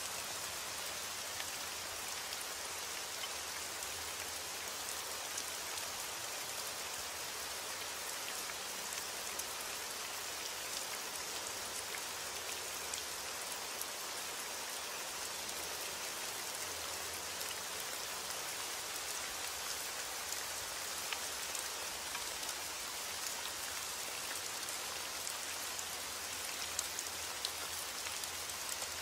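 Steady rain falling: an even, unbroken hiss strewn with many small drop ticks, a few a little louder near the end.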